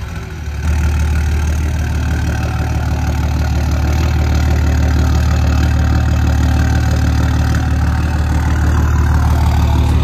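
2004 Dodge Ram's 5.9-litre Cummins inline-six turbo diesel idling steadily just after being started, as the pickup rolls slowly backward. The low, even engine note comes up to full level about a second in.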